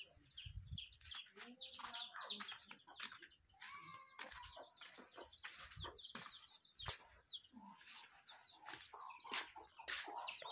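Faint bird calls: many quick, high chirps repeating throughout, with a few lower calls among them, and scattered sharp clicks.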